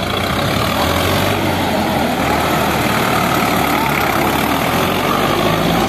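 ACE tractor's diesel engine running steadily at low speed.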